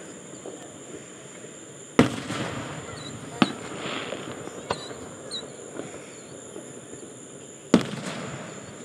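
Aerial fireworks exploding: a sharp loud bang about two seconds in and another near the end, with a few smaller bangs and some crackle between them.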